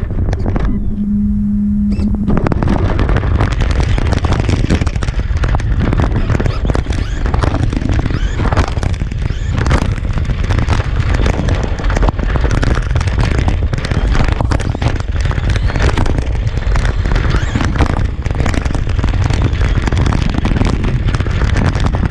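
Onboard-camera sound of a Traxxas RC truck running flat out on asphalt: a dense crackling rumble of tyre and gravel noise, chassis rattle and wind buffeting on the mic, with a steady low hum for about the first two seconds before the din takes over.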